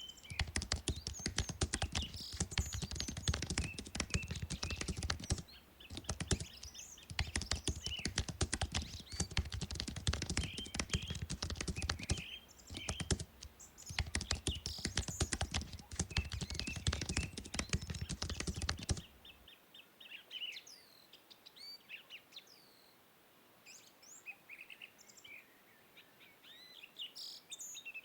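Fast typing on a computer keyboard in three long runs with short pauses between, stopping about 19 seconds in. Birds chirp throughout, and are alone after the typing stops.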